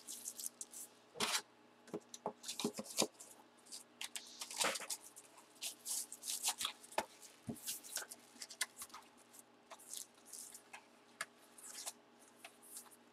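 Hands handling a trading-card box and its packaging: a string of short, irregular rustles, scrapes and clicks.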